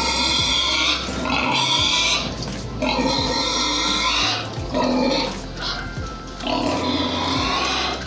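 Domestic pigs squealing for feed, a string of about five or six loud, high-pitched squeals, each roughly a second long with short gaps between: hungry pigs demanding to be fed.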